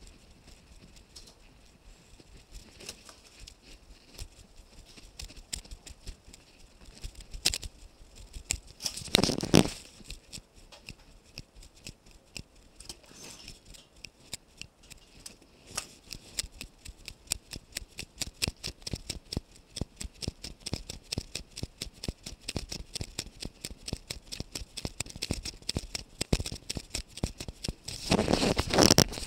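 Footsteps walking at a steady pace, heard as a run of regular short clicks and taps from a body-worn camera. Two louder swells of noise break in, about a third of the way through and near the end.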